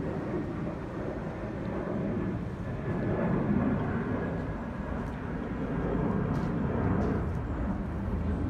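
Passing traffic on a residential street: a steady low rumble of cars that swells twice.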